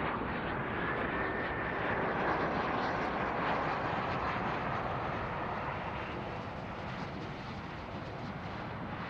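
Gulfstream business jet landing, its two rear-mounted turbofan engines making a steady rushing jet noise with a faint high whine. The noise swells as the jet passes low by, then slowly fades over the last few seconds.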